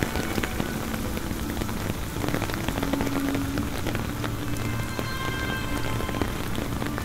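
Steady rain from the early phase of a hurricane, with many separate drops hitting a surface close by.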